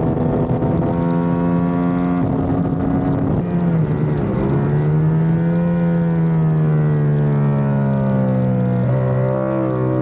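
Onboard sound of a Yamaha YZF-R7's 689 cc parallel-twin engine at racing speed, with wind rush. The engine note holds high, drops sharply for a moment about a third of the way in, then climbs and slowly falls. It jumps quickly up and down near the end as the bike comes into a corner, typical of a gear change and then downshifts on braking.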